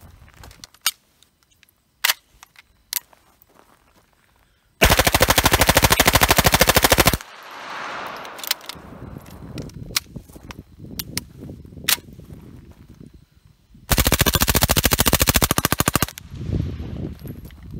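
Two long full-auto bursts of rapid fire, each about two seconds, from an HK94 converted to a 9mm MP5 submachine gun with a B&T suppressor: the first about five seconds in, the second near the end. A few sharp clicks come before the first burst.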